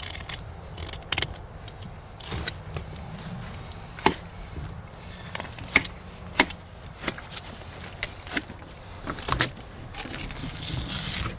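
Knife cutting a fillet off an alligator gar's backbone, with irregular sharp clicks and light scrapes as the blade works along the bones and the fish is shifted on a wooden table.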